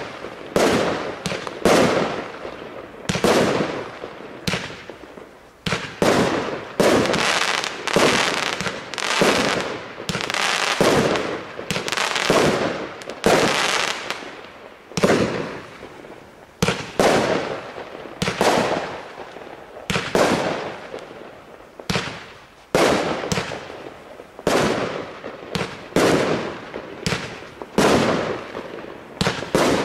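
TB86 Viva! 36-shot fireworks cake firing shot after shot, about one to two a second with a few short gaps. Each shot is a sharp bang that fades out quickly as the burst breaks overhead.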